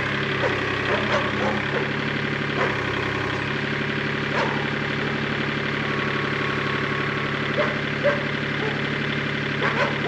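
Compact tractor engine idling steadily, its note shifting slightly about three and a half seconds in, with a few light knocks on top.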